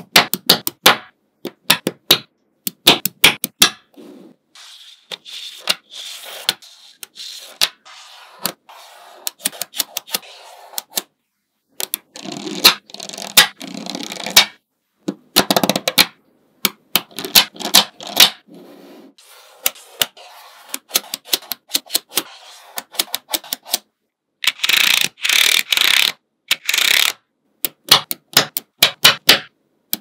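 Small magnetic balls clicking sharply as they snap onto each other, in quick runs of clicks, with several longer stretches of gritty scraping and rattling as clusters of balls are rubbed and slid against one another.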